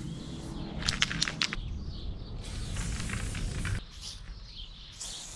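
Aerosol spray-paint can: a quick rattle of the mixing ball as the can is shaken about a second in, then the hiss of paint sprayed onto a concrete wall in short strokes.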